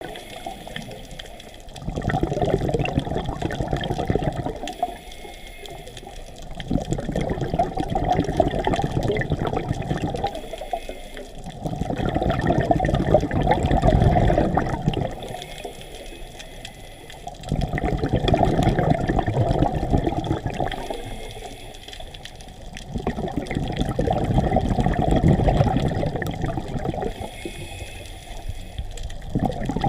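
Scuba diver breathing through a regulator underwater: exhaled bubbles gurgling in bursts of about three seconds, about every six seconds, with a faint hiss of inhalation in the gaps.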